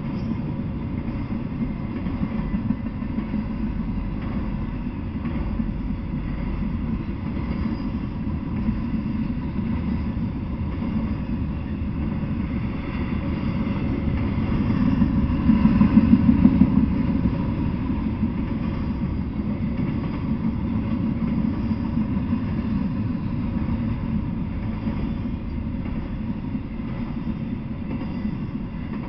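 Intermodal freight train of flatcars carrying semi-trailers rolling past, a steady rumble of wheels on the rails with faint rhythmic clatter. The noise swells briefly about halfway through, then settles back.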